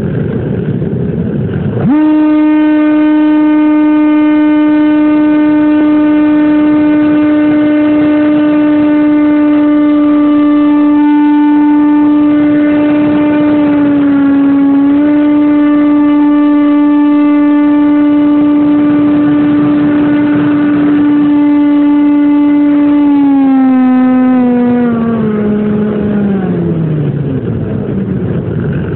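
Motor and propeller of a homemade FPV model plane, heard from its onboard camera: a rush of wind, then a steady high whine that cuts in about two seconds in at full throttle. The whine dips briefly midway, then drops in pitch in steps near the end as the throttle is pulled back.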